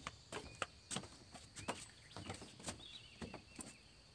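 Faint, irregular knocks of footsteps on wooden pier boards, with a few short rising bird chirps.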